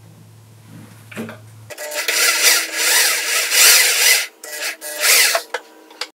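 Corded electric drill running under load, its bit cutting into plywood to countersink a screw hole. The whine starts about one and a half seconds in, rises and dips in surges as the bit bites, and cuts off just before the end.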